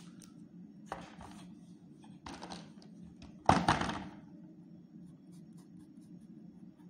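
Three short scraping handling noises over a steady low hum, the last and loudest starting suddenly about three and a half seconds in. Near the end come faint quick ticks of a sketch pen starting to draw on a wooden ice-cream stick.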